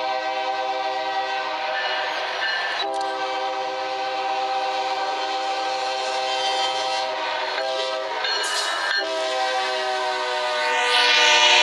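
Diesel locomotive air horn sounding a sustained chord of several tones, broken by a few short gaps. Near the end it grows louder, with a rising hiss.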